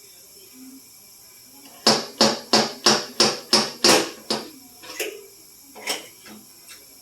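A hammer tapping a car's sheet-metal body panel during dent repair. It strikes about eight sharp, ringing blows, roughly three a second, starting about two seconds in, followed by a couple of lighter, spaced taps.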